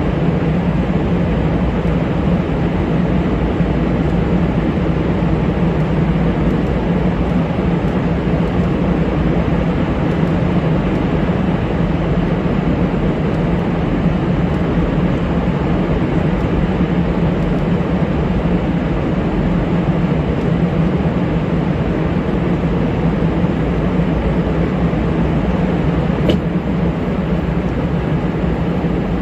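Steady drone of a KC-135 Stratotanker in flight, heard inside its boom pod: engine and airflow noise with a constant low hum. A single faint click comes near the end.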